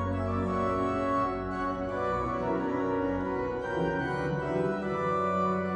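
Johannus Ecclesia 250 digital church organ playing slow, sustained chords over held bass notes, the chords changing every second or two.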